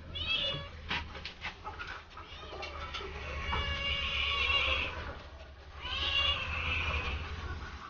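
A dog whining in high, drawn-out cries while it waits for its food, with two long whines in the second half. A few light clinks come about a second in.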